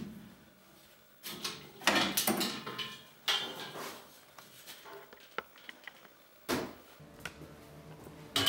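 Metal clanks and rattles as a bandsaw blade is unclamped, lifted off the blade sharpener and handled: a string of separate sharp knocks and jangles, the loudest and busiest about two seconds in.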